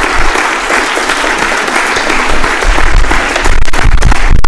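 Audience applauding, a dense steady spread of many hands clapping.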